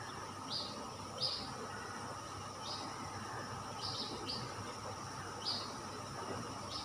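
A small bird chirping: about seven short, high chirps at irregular intervals of roughly a second, over a steady hiss.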